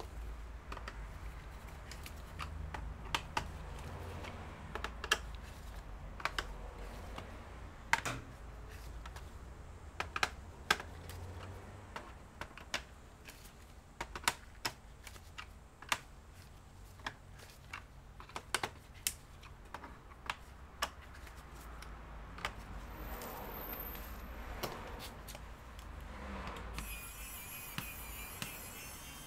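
Irregular sharp clicks and light taps of small plastic and metal laptop parts being handled during disassembly, a few a second at times, with pauses.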